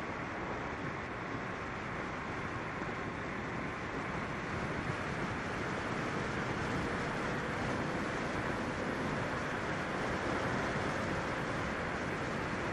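FPV quadcopter in flight: steady rushing air noise with a faint, slowly shifting motor whine, growing slightly louder partway through.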